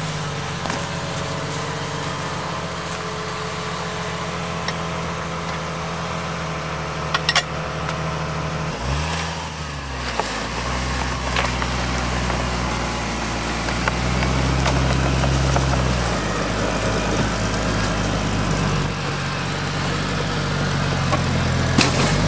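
Jeep Wrangler's engine running steadily at low revs, then revved up and down about nine seconds in and worked harder at shifting revs, loudest around two-thirds of the way through, as it pushes through deep snow. Two sharp knocks, one before the revving and one near the end.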